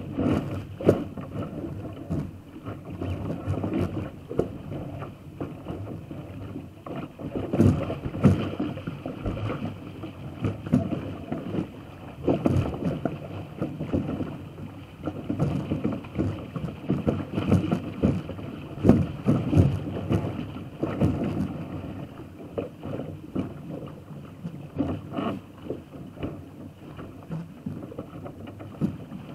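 Water rushing and splashing along a small sailing dinghy's hull as it sails briskly through chop, heard close from the foredeck, in uneven surges each second or so as the bow meets the waves.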